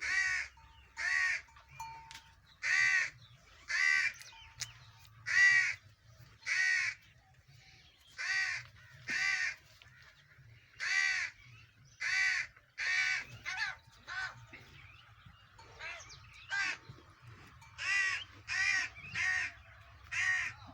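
Crows cawing over and over: a long series of short harsh caws, roughly one a second, with a few brief pauses.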